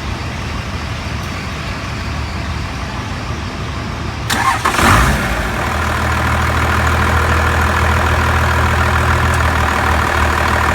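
A truck's engine is cranked by the starter about four seconds in, catches quickly with a short rise in pitch, and settles into a steady idle.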